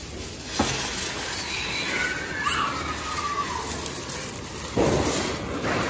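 Ground fireworks spraying sparks and hissing, with a sharp pop about half a second in and a louder burst of noise lasting about a second near the end.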